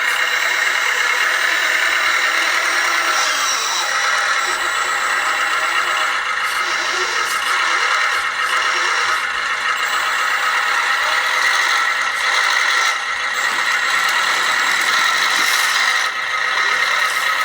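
Small electric motors and gearing of 1/14-scale RC construction machines running, a steady high-pitched whine.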